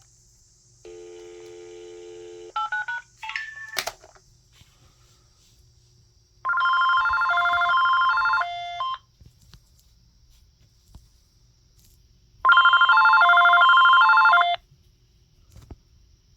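A dial tone, then a number dialed in a few quick beeps, then an AT&T SL82218 DECT 6.0 cordless phone rings twice with a warbling, melodic electronic ringer, each ring about two seconds long, the second one louder.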